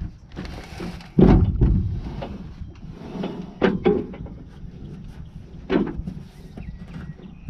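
A few heavy clunks and knocks a couple of seconds apart, the loudest about a second in, over a low steady rumble.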